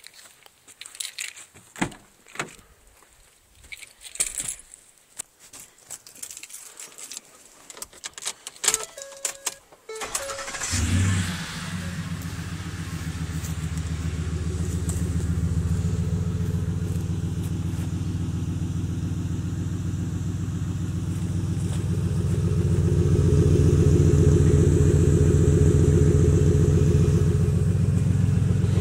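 Scattered clicks and rattles, then about ten seconds in a 2010 Ford F-150's V8 starts warm, flares briefly and settles into a steady idle through dual Magnaflow mufflers. The exhaust note gets somewhat louder for a few seconds near the end.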